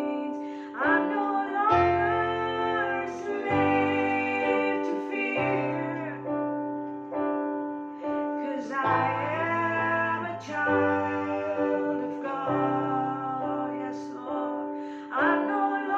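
Slow worship music: sustained keyboard chords whose bass notes change every couple of seconds, with a woman's voice singing a wavering melody over them.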